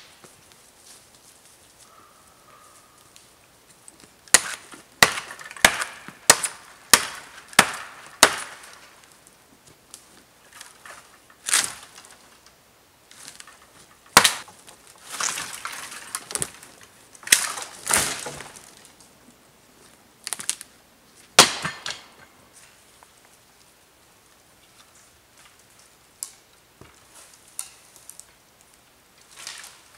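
Dry dead wood being broken by hand: a quick run of about seven sharp cracks and snaps, then scattered single cracks and a few longer crackling breaks, dying away about two-thirds of the way through.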